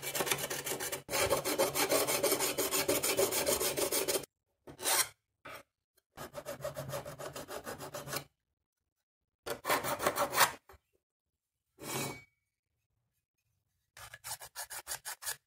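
Hand file rasping along the cut edge of a thin sheet-steel drive bay cage in quick, rhythmic strokes, smoothing off the sharp burrs left by the cut. There is a long run of strokes at first, then several shorter runs separated by pauses.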